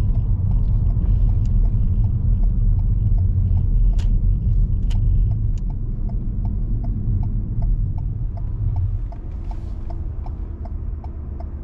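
Steady low road and engine rumble inside a car's cabin, with the turn indicator ticking about three times a second. Two sharp clicks sound about four and five seconds in, and the rumble eases about nine seconds in as the car slows for the roundabout.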